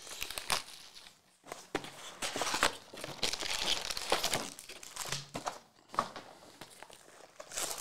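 Cardboard trading-card hobby box being opened by hand and its foil-wrapped packs handled: irregular crinkling and rustling of foil and card, loudest a few seconds in.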